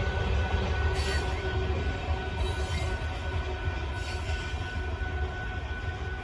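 Loaded sand train's freight cars rolling past, a steady rumble of wheels on rail with a thin high wheel squeal and a few brief screeches.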